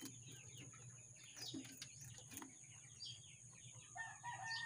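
Faint background birds: scattered short chirps throughout, and a longer clucking call about four seconds in.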